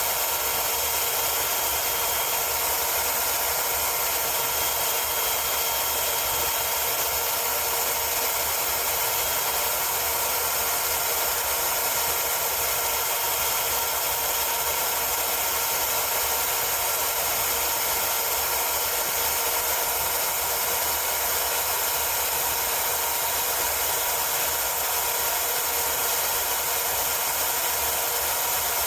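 Electric knife sharpener running steadily, grinding a new point onto the tip of a Japanese utility knife.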